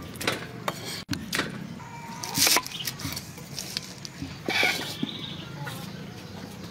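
Food-preparation handling sounds: scattered knocks, clicks and rustles of squid pieces being handled and a knife working on a wooden chopping board, with two louder brief rustling rushes partway through.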